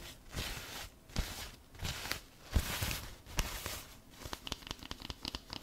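Thin white wrapping paper being crinkled and rustled by hand close to a microphone, in irregular swells of rustling with a few sharp crackles.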